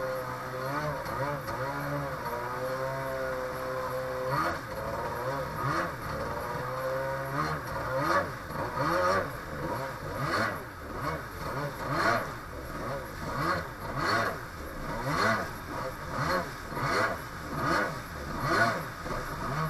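Two-stroke jet ski engine running at a steady pitch with water rushing past. From about eight seconds in, the sound swells and drops roughly once a second as the revs change and water slaps and splashes against the hull over the chop.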